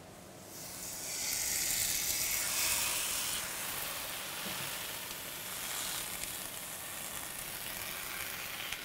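Wet dhapata dough (jowar-flour flatbread) sizzling as it is laid face-down from a damp cotton cloth onto a hot, oiled tava griddle. The sizzle swells about a second in, then settles to a steady hiss.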